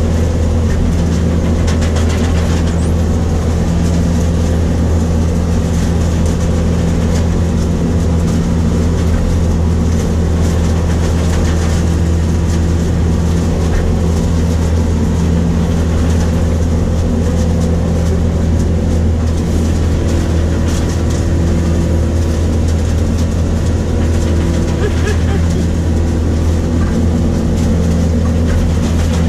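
New Holland grape harvester running steadily while picking, heard from inside its cab: a constant low engine drone with a fine mechanical clatter over it.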